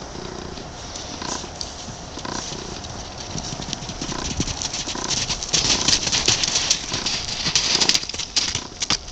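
Hooves of a nine-month-old Azteca (Andalusian–Quarter Horse cross) foal striking the sand as he canters loose. The strikes get louder and busier from about halfway through as he comes up close.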